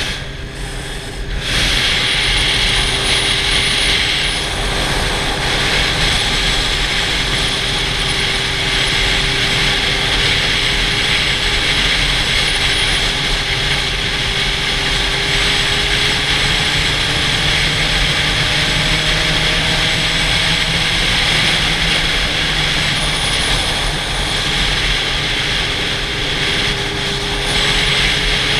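Sport motorcycle cruising at speed, heavy wind rush over the helmet-mounted camera nearly covering a faint engine drone that slowly rises in pitch. The wind noise dips briefly at the start.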